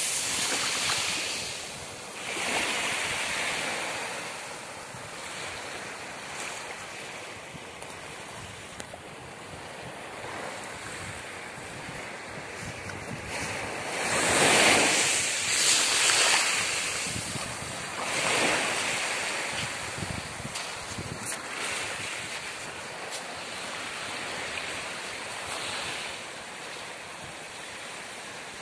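Small waves washing onto the beach in slow surges, with wind buffeting the microphone. The loudest surge comes about halfway through.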